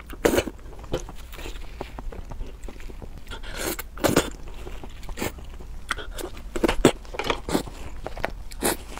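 Close-miked mouth sounds of eating sauced squid: wet chewing and lip smacking with irregular clicks, and a longer slurp about four seconds in as food is sucked off the chopsticks.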